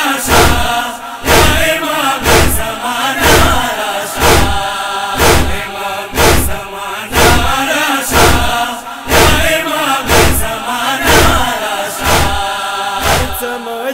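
Voices chanting a noha lament over a steady beat of matam (rhythmic chest-beating), about one stroke a second.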